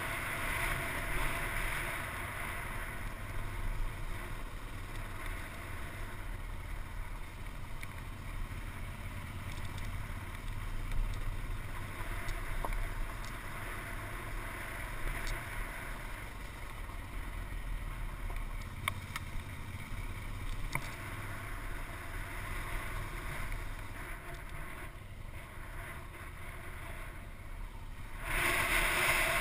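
Off-road motorcycle running over a rough rocky dirt track, heard muffled through a helmet-mounted camera with wind noise on the microphone and a few sharp clicks. The sound grows louder about a second before the end.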